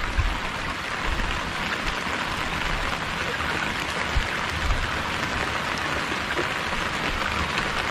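Steady rain falling on open water and the raft, an even hiss throughout, with a couple of faint low knocks about four seconds in.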